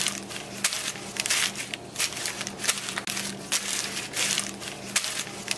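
Footsteps crunching through dry leaves, at a walking pace of about two crackly crunches a second.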